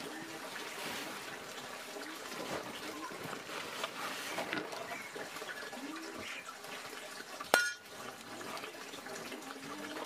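Water trickling and splashing steadily. About seven and a half seconds in comes a single sharp knock with a brief ringing tone, the loudest sound.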